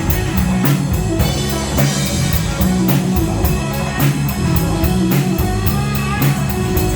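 Rock band playing live: a drum kit keeps a steady beat under electric guitar and bass.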